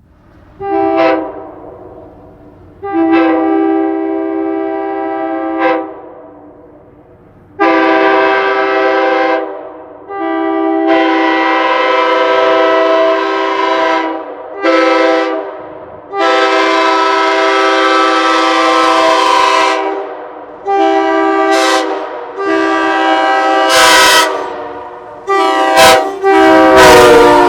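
Nathan Airchime K5LA hybrid five-chime train horn, mounted on a truck, blown in about a dozen loud blasts of varying length, from short toots to holds of about four seconds. Each blast is a full chord that starts and stops sharply, with a quick run of short toots near the end.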